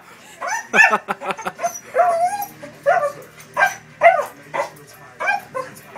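Blue Heeler–Corgi mix dog barking and yipping in short repeated calls, roughly ten in six seconds, a few with a wavering pitch.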